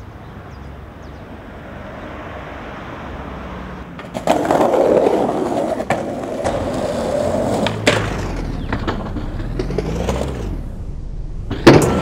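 Skateboard wheels rolling on a concrete sidewalk, louder from about four seconds in, with small clicks as the board crosses cracks and joints. A sharp loud crack of the board just before the end.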